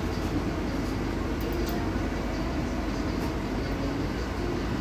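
Ursus city bus in motion, heard from inside the passenger cabin: a steady rumble of drivetrain and road noise, with a few light clicks and rattles from the interior fittings about a second and a half in.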